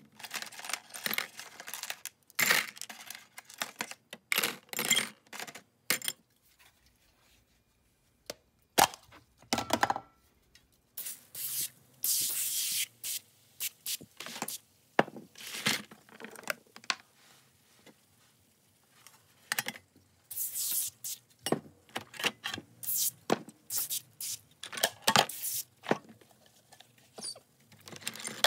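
Vintage steel socket-set parts, a ratchet, handle and sockets, being scrubbed and worked in a foam-covered tray: irregular scratchy rubbing strokes, some short and some lasting a second or more, with brief pauses.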